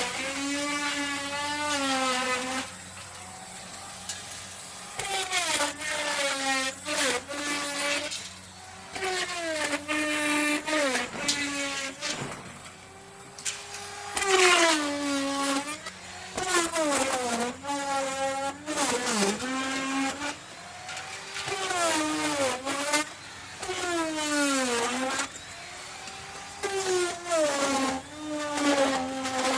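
Small electric power-tool motor revving up and down over and over, its whine falling and rising in pitch every second or two, with short drops between runs.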